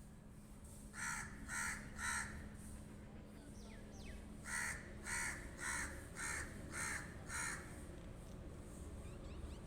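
Pet crow cawing: three short caws about a second in, then after a pause a run of six caws about half a second apart.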